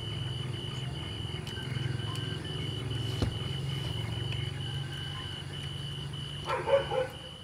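Night ambience: an insect chirping in a steady high pulse about three times a second over a low hum, with a short louder sound near the end.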